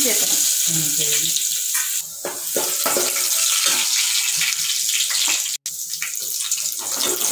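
Chopped garlic frying in hot oil for a tempering: a steady sizzle dotted with sharp crackles and pops, cut off for an instant a little past halfway.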